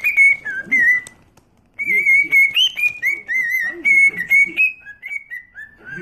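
Cockatiel whistling a tune: a run of warbled whistled notes that step up and down in pitch, with a short break a little over a second in.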